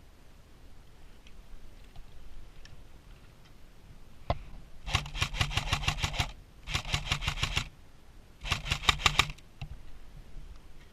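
Airsoft rifle fired: a single shot, then three bursts of rapid full-auto fire, each about a second long, with a low hum from the mechanism under the shots.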